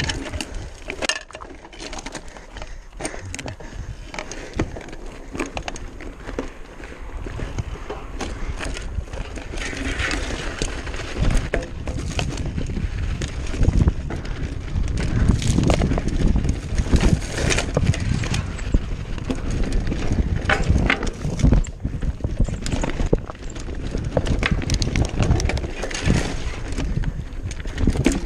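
Commencal Meta AM V4 mountain bike ridden over a loose rocky trail: tyres crunching over stones, with frequent rattles, clicks and knocks from the bike. A low rumble builds and grows louder about halfway through.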